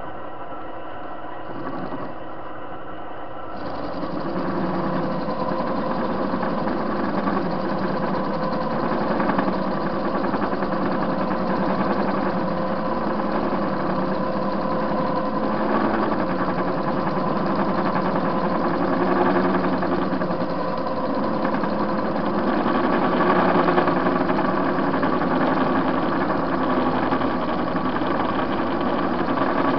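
TV-16 lathe running, its spindle gearing humming steadily, with the cutter taking a light pass across the face of a metal washer. The sound grows louder and fuller about three and a half seconds in and then holds steady.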